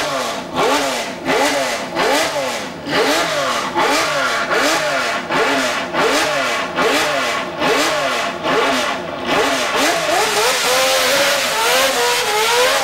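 A historic Formula One car's racing engine blipped repeatedly, its pitch swinging up and down about once every 0.7 s. Around ten seconds in, the blipping gives way to a steadier, rising engine note as the car pulls away.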